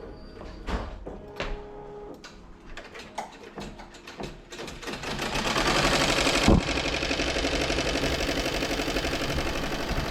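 A few scattered clicks and taps, then about four and a half seconds in a multi-needle embroidery machine starts stitching and runs on steadily with a fast, even rattle of needle strokes. There is a single sharp knock just after it gets going.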